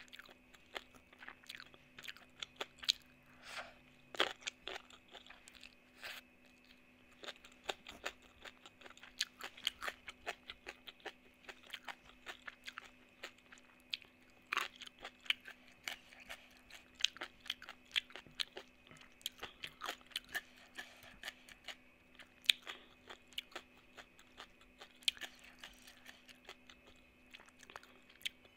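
Close-up crunchy chewing and biting of spicy shredded mango salad with rice: many sharp, irregular crunches over a faint steady hum.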